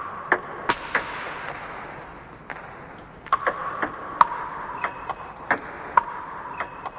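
Table tennis ball clicking off rubber bats and the table in a chopping rally: a quick series of sharp clicks, sparse for a couple of seconds, then coming every half-second or so through the rest, with a gym's echo behind them.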